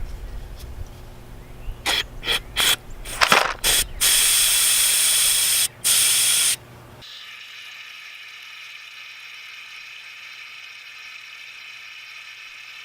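Aerosol cleaner spray can hissing: several short squirts, then two longer bursts, blown through a brake passage to check that it is clear. After that a quieter steady hiss continues.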